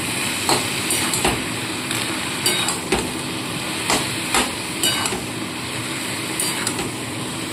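Metal spatula stirring boiled ash gourd in a hot metal kadai, knocking and scraping against the pan about ten times at an uneven pace, over a steady sizzle of frying.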